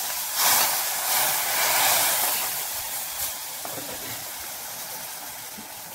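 Loud sizzling hiss of hot sesame oil and fried turkey berries hitting boiling tamarind curry. It surges about half a second in, then slowly dies down.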